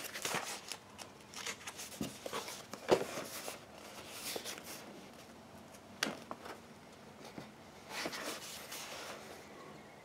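Book pages rustling and being turned in a string of short, soft bursts, with a sharper flick about three seconds in.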